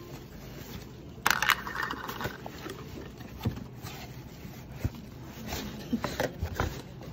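Cardboard shipping box being handled and opened: a loud scrape of cardboard about a second in, then scattered crackles and taps as the lid comes off over the bubble-wrapped contents.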